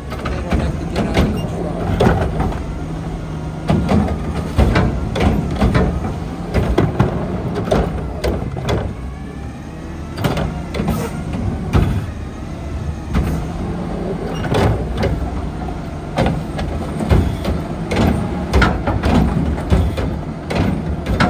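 Mack LR garbage truck's engine running while its Curotto Can automated arm grabs wheeled carts and tips them into the hopper, with frequent clanks and bangs of carts and arm. A whine rises in pitch around the middle as the arm works.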